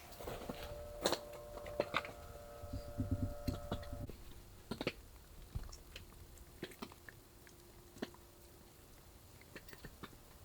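Crunchy chewing: irregular clicks and crackles of something being bitten and chewed. A faint steady tone runs under the first few seconds.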